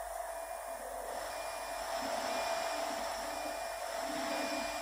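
Steady hum and hiss of running machinery at a fiber laser cutting machine, with a faint short beep about once a second. It grows a little louder about two seconds in.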